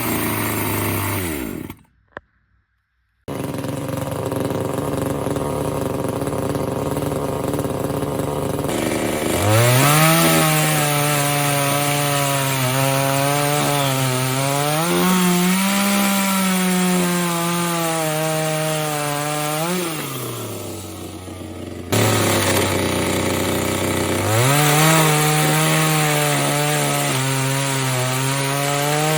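Parkside top-handle two-stroke petrol chainsaw idling, then revved up and cutting wood twice. The engine note wavers and sags as the chain bites, and falls back to idle between the cuts.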